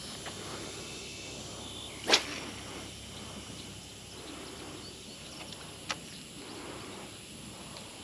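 Steady outdoor background hiss at a pond's edge, broken by one sharp, loud short sound about two seconds in and a smaller click near six seconds.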